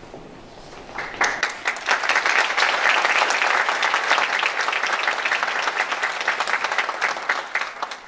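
Audience applauding: the clapping starts about a second in, builds quickly, then dies away near the end.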